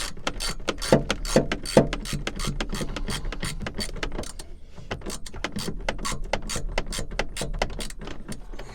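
Ratchet with a T50 Torx bit clicking rapidly as it drives a seatbelt retractor's mounting bolt back in. The clicks come several a second, then thin out after about four seconds.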